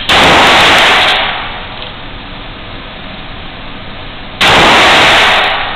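Two loud gunshots about four seconds apart, each cutting in sharply and dying away over about a second.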